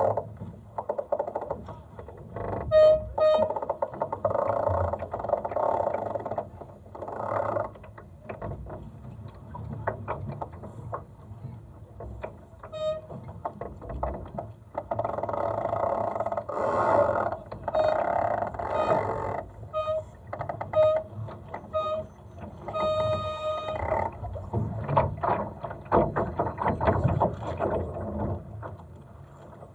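A Laser dinghy sailing in light wind: water lapping and gurgling against the hull in uneven surges, with short high squeaks several times.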